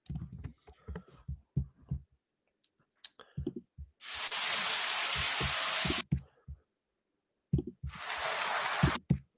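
Rainforest sound-effect clips previewed in a video editor's stock library. The first is about two seconds of dense, even hiss with a steady high whine. After a pause a second, shorter burst of hiss plays. Mouse clicks and keyboard taps come in between.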